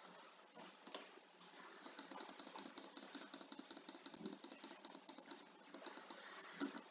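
Faint, rapid keystrokes on a computer keyboard in two runs of typing, the first for about three seconds from two seconds in and a shorter one near the end.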